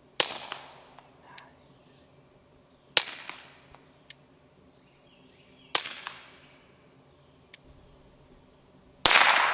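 Four suppressed .22LR pistol shots from a Volquartsen Scorpion fitted with a Rugged Oculus22 suppressor, about three seconds apart. The last shot, near the end, is fired with the suppressor in its short configuration and rings on longer than the others, loud for a suppressed pistol.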